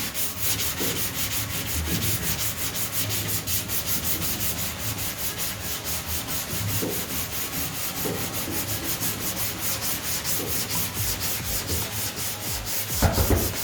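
Sandpaper rubbed back and forth by hand over a car body panel in quick, even strokes, sanding to show up the panel's low and high spots before bodywork.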